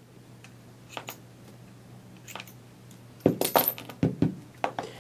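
Small steel pistol parts and a punch clicking and clinking against the 1911-style frame and the bench: a couple of faint clicks, then a quick cluster of sharp metallic clinks about three seconds in.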